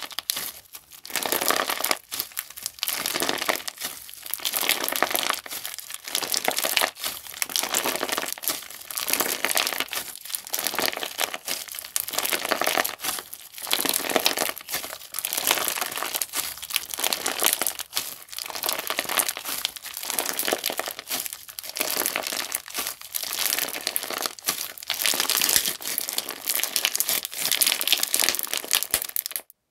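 Clear-base crunchy slime being squeezed and pressed by hand, giving dense crinkly crackling in repeated presses about once a second. It cuts off abruptly near the end.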